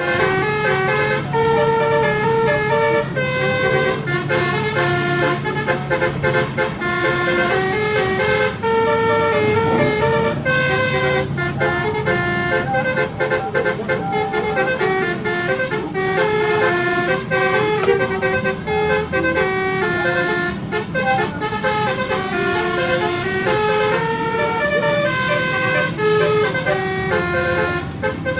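Indonesian "telolet" bus horn, a set of multi-tone horns playing a quick melody of short notes that jump up and down in pitch, over a low steady hum from the bus.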